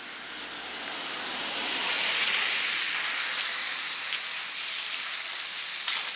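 Peugeot hatchback driving past on wet, slushy asphalt: the hiss of its tyres swells to a peak about two seconds in, then fades as it moves away. A couple of short knocks near the end.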